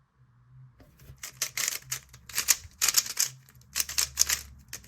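MoYu HuaMeng YS3M magnetic ball-core 3x3 speedcube being turned fast during a speedsolve: rapid clattering clicks of the plastic layers, starting about a second in and coming in quick flurries with short pauses between.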